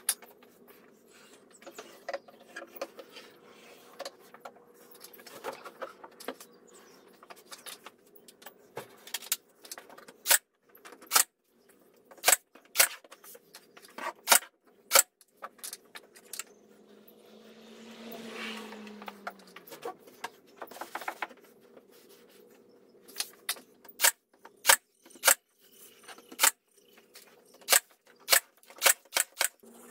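Workshop handling sounds: irregular sharp clicks and knocks of tools and parts. About 17 seconds in, a small motor runs briefly with a whir, then falls in pitch as it winds down about three seconds later.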